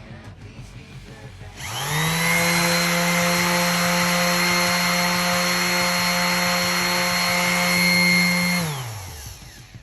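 Stanley SS30 random orbital sander switched on: its 300 W motor spins up within a fraction of a second to a steady high hum and whine. It runs evenly for about seven seconds, then is switched off and winds down quickly, the pitch falling away.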